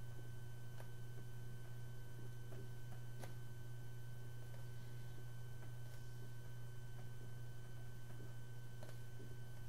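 Steady low electrical hum with a faint high steady whine above it, and a few faint clicks.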